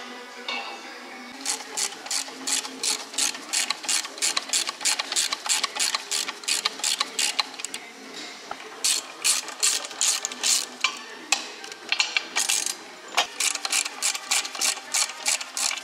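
Hand socket ratchet wrench clicking as its handle is swung back and forth to turn bolts on an engine, in quick runs of several clicks a second with short breaks between them.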